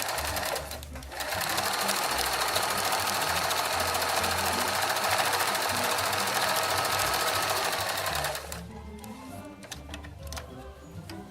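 Janome sewing machine running steadily, stitching a small zigzag as a test of its newly repaired forward feed. It pauses briefly just under a second in, then runs on and stops about eight and a half seconds in, leaving only a few light clicks.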